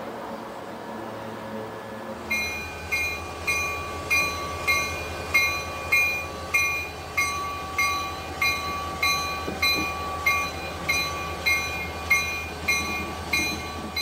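Locomotive bell ringing steadily, about one stroke every 0.6 seconds, on a passing diesel locomotive, over the low steady rumble of its engine. Before the bell starts, about two seconds in, there is only a low steady hum.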